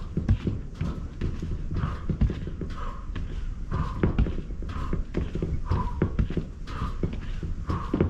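Booted feet stepping and stamping in a steady high-knee march, many dull thuds in quick succession, with a lighter, higher sound recurring about once a second.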